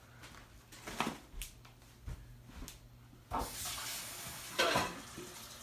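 Kitchen handling sounds: a few light knocks of dishes, then a steady rushing hiss that starts about halfway through, with a louder clatter near the end.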